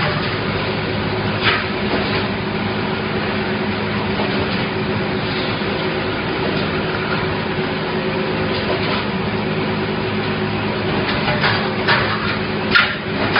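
Wire mesh welding machine running with a steady machine hum. A short crackle of welds comes about a second and a half in, and a quick run of sharp welding crackles starts near the end as the row of welding heads fires again.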